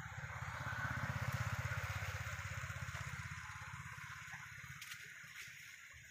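A small engine running with a rapid low throb, swelling about a second in and then fading away over the next few seconds, like a vehicle passing by.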